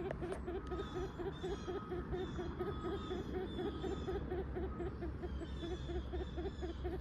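Ruffed grouse hen giving a steady, rapid series of soft low clucks, about five or six a second.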